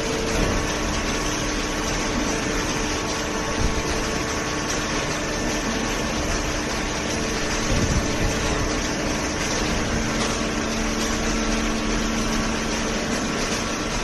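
Hydraulic cardboard baler and its feed conveyor running steadily: a machine hum of several steady tones over an even rumble, with a few small knocks.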